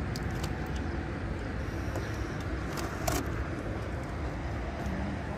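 Steady low background rumble, with a few light clicks, the clearest about three seconds in.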